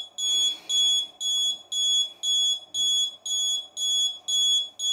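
Piezo buzzer of an Arduino alarm clock beeping, a high-pitched tone about twice a second: the clock's alarm going off at its set time.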